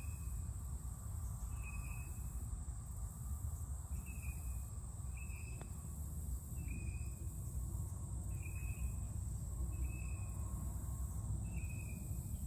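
Outdoor ambience on a golf course: a short, high chirp repeating about every second and a half, over a steady high hiss and a low rumble of wind.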